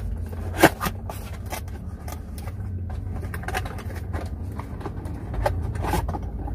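Cardboard product box being opened by hand: a run of scrapes and rustles of the flaps, with a sharp click a little over half a second in. A steady low hum runs underneath.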